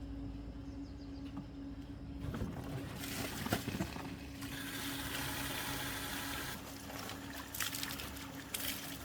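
Water trickling and splashing, with a few knocks about three and a half seconds in, over a steady low hum.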